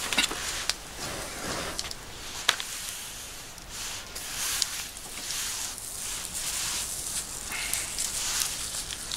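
Campfire embers hissing and crackling as a still partly frozen sirloin steak is laid directly on the glowing coals to sear. Sharp crackles stand out now and then over a steady hiss.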